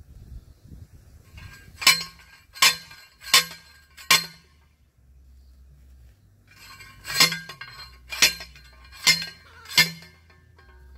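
Manual post driver pounding a steel T-post into the ground: two sets of four sharp metallic clanks, each ringing briefly, with a pause of about three seconds between the sets.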